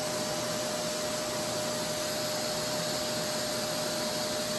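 RevAir reverse-air hair dryer running steadily, a suction hiss with a steady whine through it, as it draws hair into its wand to dry it.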